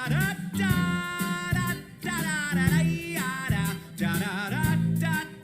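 A voice singing a wordless 'da da da' refrain over band accompaniment, one syllable after another on changing notes.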